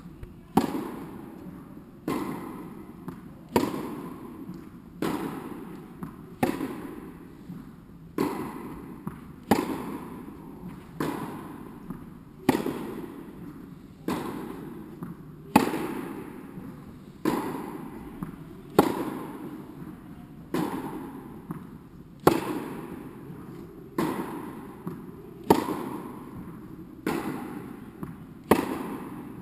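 Tennis rally: a tennis ball struck by rackets and bouncing on the court, a sharp pock about every one and a half seconds, each echoing in a large indoor hall.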